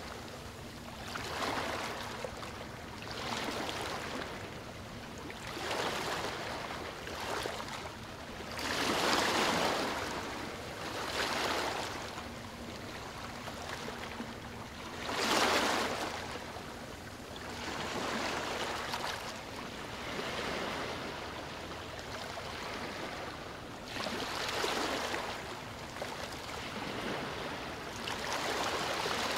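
Rushing water noise that swells and fades every two to four seconds, the loudest swell about fifteen seconds in.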